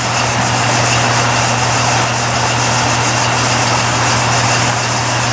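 Replacement 220-volt main circulation fan inside a Dezhou Runde Metal egg incubator running steadily: a rush of moving air with a low hum and a grinding sound. The fan is already grinding after only minutes of running, which the owner takes as a sign it could die any second.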